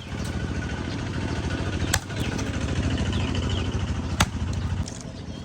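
An engine running steadily, swelling slightly in the middle, with three sharp knocks about two seconds apart.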